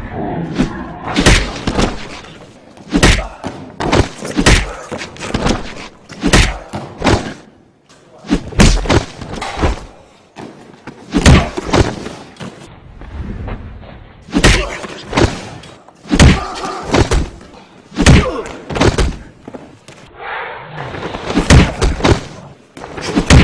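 A string of heavy thuds and slams, about one every second or two, from bodies landing on crash mats and feet striking the floor in stunt falls and kicks, echoing in a large hall.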